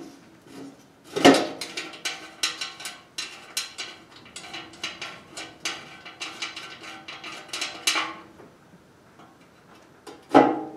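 Ratchet wrench clicking in quick repeated strokes for several seconds, backing a 12 mm side bolt out of the steel auger housing of a Honda HSS1332 snowblower. A metallic knock comes about a second in and another near the end.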